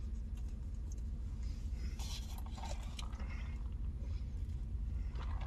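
Quiet chewing and small mouth noises, a dog eating and a man sipping a drink, with scattered small clicks and a few short hissy sounds about two seconds in. A steady low hum runs underneath.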